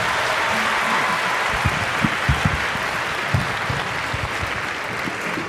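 Audience applauding after a song, slowly dying down toward the end, with a few short low thumps partway through.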